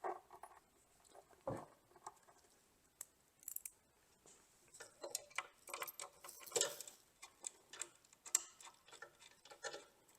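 Faint, irregular clicks, taps and a few knocks of metal fastening hardware (bolts, nuts and washers) being handled and tightened while a wooden tabletop is mounted on a drill press, with one fuller knock about a second and a half in.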